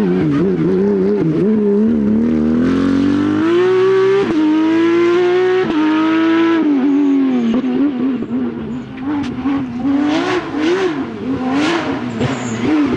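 Rally car engine under hard driving: the revs waver, climb through two quick gear changes, then fall away and rise and fall again as the car works through the stage. A few short hissy bursts come near the end.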